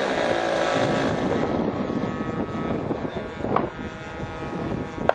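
Engine and propeller of a giant-scale radio-controlled Cessna model droning steadily in flight, growing fainter as it flies off.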